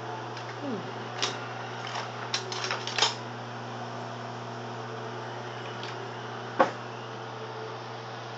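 LG microwave oven running with a steady hum while it heats a frozen Salisbury steak entrée. A few sharp clicks come between about one and three seconds in, and one louder click about six and a half seconds in.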